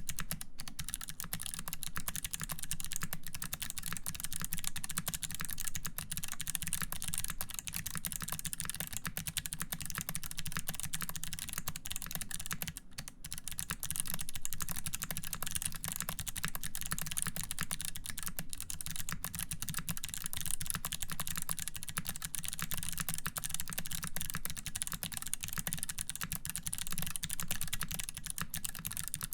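Fast, continuous typing on a mechanical keyboard with lubed clicky Kailh BOX White switches in an aluminium plate and GMK keycaps: a dense stream of crisp clicks and keycap clacks, with a brief pause about 13 seconds in.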